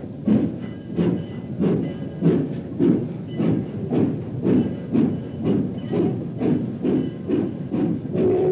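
Steam locomotive chuffing at a steady beat of roughly three exhaust beats a second, with a hiss of steam between the beats. A steady held tone of several notes comes in near the end.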